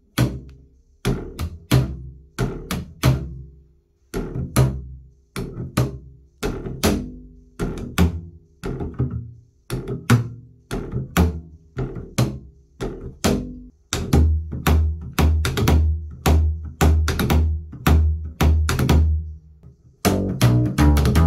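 Upright double bass played with the rockabilly slap technique in drag triplets: each bass note is followed by quick percussive clicks as the hand drags back and snaps the strings against the fingerboard. The groups come spaced apart at first. About two-thirds of the way in they settle into a steady run, with the bass notes ringing on under the clicks.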